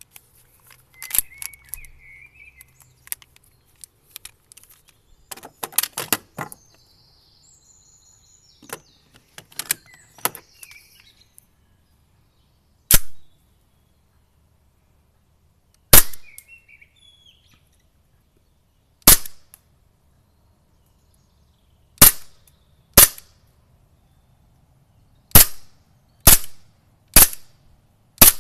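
WE PX4 gas blowback airsoft pistol firing nine single shots, sharp cracks spaced one to three seconds apart, in the second half. Before the shots there are light clicks and rattles from the pistol being handled.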